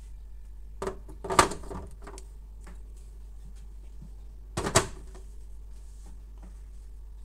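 Plastic ADF hinges of a Canon MF216n laser printer being pushed down into their sockets in the printer's housing: two short bursts of hard plastic clicks and knocks, one about a second and a half in and the other about three seconds later.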